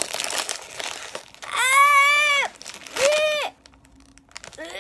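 Crinkling of a chip bag being opened, then a child's voice giving two high, held notes, the first about a second long and the second shorter.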